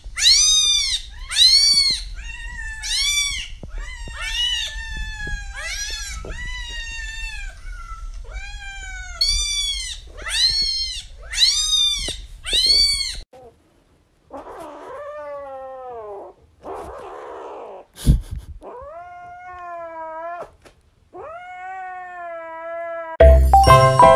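A kitten's high-pitched meows in a fast string, about one a second, from a video of a kitten playing on a phone. After a cut about 13 s in come a few slower, lower cat meows. Music starts near the end.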